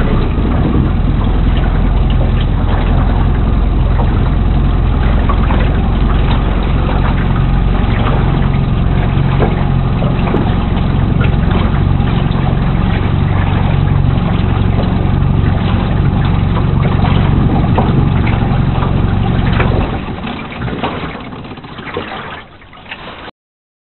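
A motor engine running loud and steady, with a low even hum, fading away about twenty seconds in.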